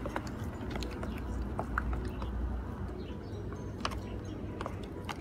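Plastic spoon stirring sticky glue-and-borax slime in a plastic tub: irregular small clicks and ticks as the spoon works through the slime and knocks the container, over a low steady hum.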